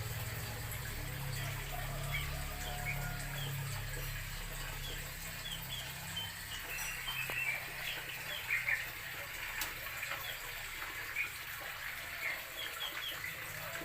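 Small birds chirping, with many short, high, scattered chirps throughout. A low rumble sits underneath, strongest in the first few seconds.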